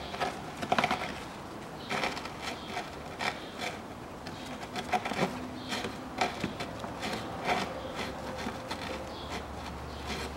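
Gloved hand stuffing the air-intake duct of an open car air-filter housing shut: irregular rustling and rubbing, with scattered light knocks and clicks.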